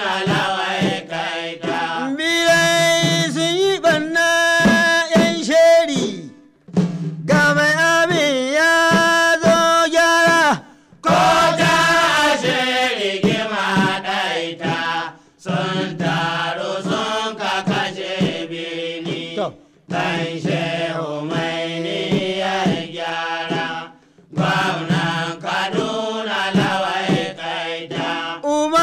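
Hausa praise song: a voice sings long, wavering, held lines to percussion, in phrases of about four to five seconds with a brief break between each.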